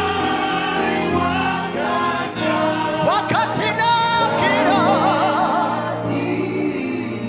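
Gospel worship music with singing over held chords; about halfway through, a voice sings a wavering, sliding run with vibrato.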